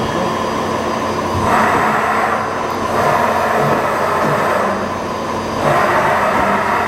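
CME BF-02 CNC bed milling machine running with a steady mechanical hum and hiss. It swells louder and brighter twice, about a second and a half in and again near the end.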